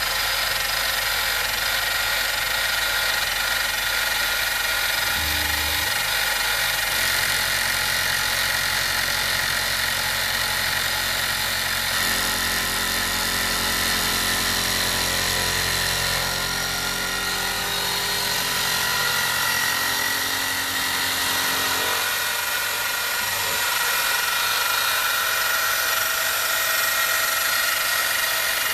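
CNC-converted mini milling machine running: a steady motor whine and machining noise. Its lower hum changes pitch in steps several times as the moves change.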